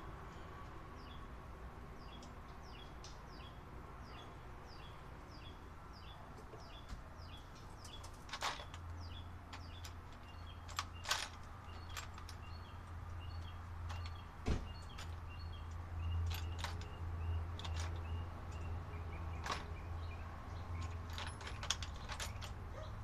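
Sharp metallic clicks and clinks of brass air fittings and tools being picked through in a parts box, starting about a third of the way in. Behind them a bird chirps over and over in quick, even notes, and a low steady hum comes in partway through.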